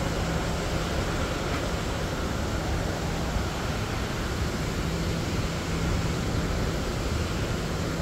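Steady rush of Fall Creek's water running through the gorge, an even noise with no breaks.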